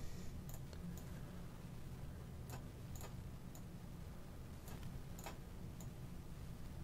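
Faint, scattered clicks of a computer mouse, about eight in all, over a low steady hum.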